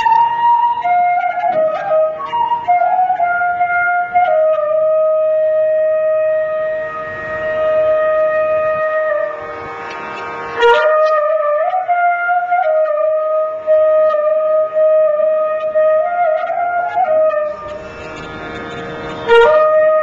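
Carnatic bamboo flute playing a slow melody of long held notes joined by slides in pitch, with a short break between phrases about halfway through and again near the end.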